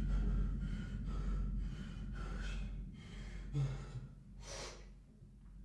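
A man breathing hard in quick, ragged breaths, about two a second, then two heavier gasps about three and a half and four and a half seconds in, the first with a voiced groan.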